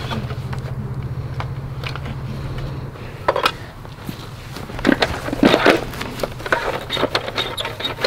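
Plastic toy dump truck rolled across grass, a steady low rumble for about the first three seconds. Then come scattered clicks and rustles of plastic and dry leaves as the truck is handled on the dirt and its loaded bed is tipped.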